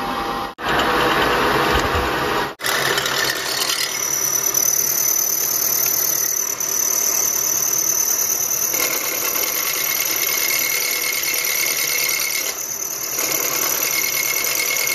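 Milling machine spindle running a long end mill slowly down into a stud hole of a Cosworth 200 engine block, a steady machining noise with a high-pitched whine. It breaks off briefly twice in the first few seconds.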